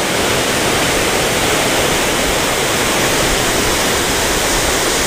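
Hareshaw Linn waterfall: a loud, steady rush of falling water.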